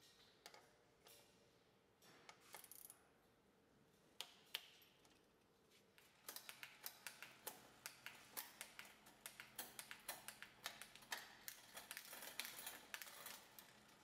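Faint clicking from a road bike's chain and rear gears as the cranks are turned by hand and the rear gears are shifted, checking the shifting. A few scattered clicks at first, then from about six seconds in a steady run of about four clicks a second.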